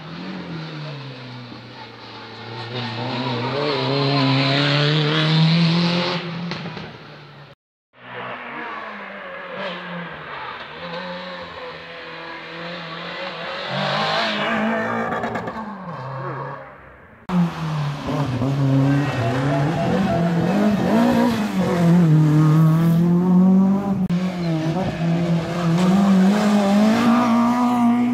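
Rally car engines revving hard through a hairpin, pitch climbing under acceleration and dropping on gear changes and braking, in three separate passes cut together.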